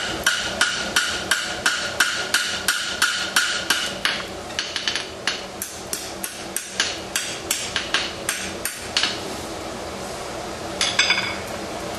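Hammer blows on a steel tong blank on an anvil, forging the offset of a pair of tongs. The blows come steadily at about three a second, with the anvil ringing under them for the first few seconds. They stop about nine seconds in, and a couple of quick strikes follow near the end.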